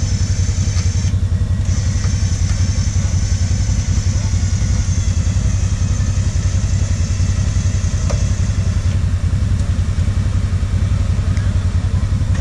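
CFmoto ATV engine running steadily at idle close by, a low hum with a fast, even pulse, while it winches a car out of the mud. A faint high whine above it drops out briefly about a second in and stops about nine seconds in.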